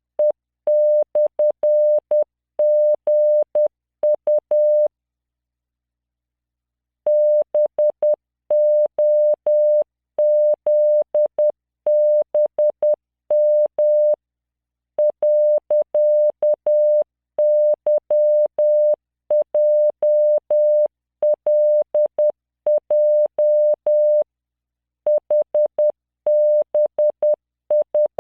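Morse code training tones from LearningMorse software: a steady 600 Hz tone keyed on and off in dots and dashes at 10 words per minute, sending random five-character groups of letters, figures and punctuation. Short pauses fall between groups, with a longer pause of about two seconds around five seconds in.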